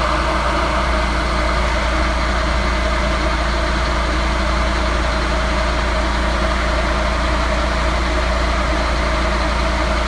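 Car engine idling with a steady, unchanging drone.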